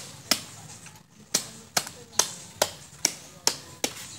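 A knife hacking at a hanging, skinned goat carcass: eight sharp chops, most about half a second apart, with a longer gap after the first.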